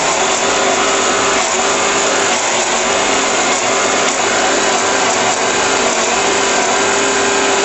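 Electric cone grinder running steadily, its rotating inner cone crushing peanuts into peanut butter: a dense, even machine noise with a steady hum.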